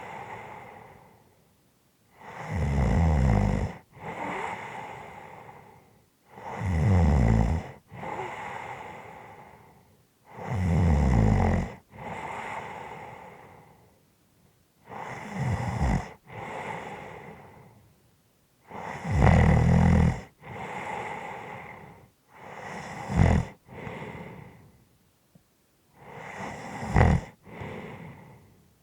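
A person snoring about every four seconds: each loud, low, rattling snore is followed by a softer breathy breath that fades away. Near the end the snores come shorter and sharper.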